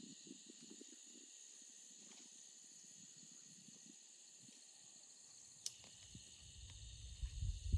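Insects trilling steadily in a high, even chorus at dusk. A single click comes about two-thirds of the way through, and a low rumble builds near the end.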